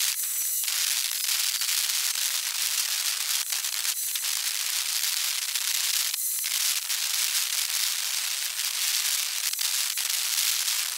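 Dense, steady crackling hiss full of short sharp clicks, all high-pitched with no low end, and a few brief louder patches.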